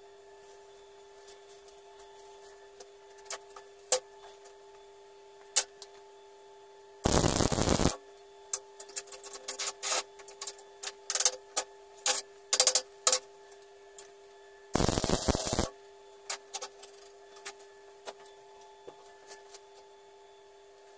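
Two short MIG tack welds on steel, each a loud crackling burst of under a second, the second about eight seconds after the first. Scattered sharp clicks and knocks of metal being handled fall between them, over a steady faint hum.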